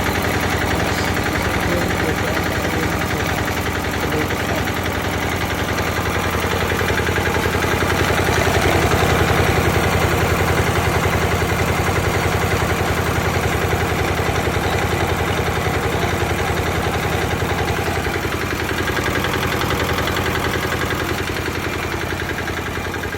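Engine driving a YBM-05DA geotechnical drilling rig, running steadily with a rapid, even beat; it grows a little louder about eight seconds in and eases off toward the end.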